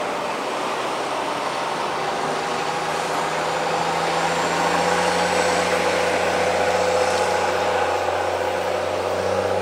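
Diesel engine of an NZLAV eight-wheeled armoured vehicle running under load as it drives up a beach, its steady engine note getting louder about halfway through.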